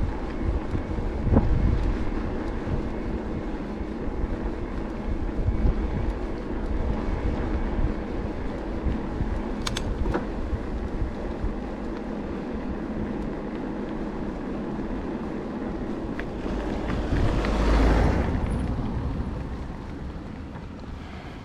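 Wind buffeting the microphone and rolling road noise from an e-bike on the move. A louder swell of noise rises and falls about seventeen seconds in.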